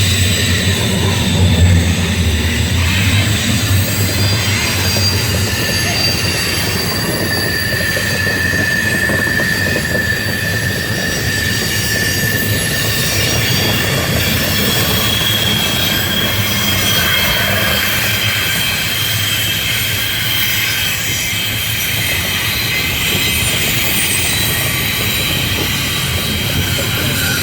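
CSX intermodal freight train rolling past, its cars rumbling steadily on the rails, with wheels squealing in long drawn-out high tones.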